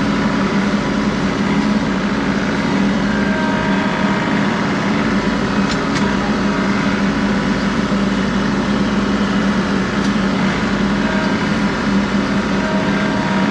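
John Deere 3038E tractor's three-cylinder diesel engine running steadily.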